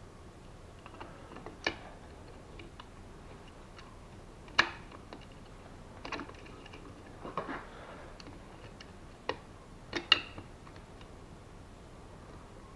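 Scattered metallic clicks and small knocks of a socket wrench working the screws on the back of a removed car alternator, undoing its brush holder. The two loudest knocks come about four and a half and ten seconds in.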